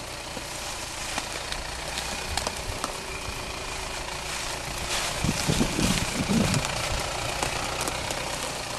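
Jeep Wrangler Rubicon JL's 2.2-litre diesel engine running at low revs as the lifted Jeep crawls over rough ground, with scattered clicks, getting louder for a couple of seconds past the middle.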